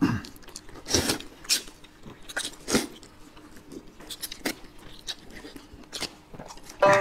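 Close-up eating sounds of two people chewing, biting and slurping buckwheat noodle sheets: an irregular run of short wet smacks and crunches. Music comes in just before the end.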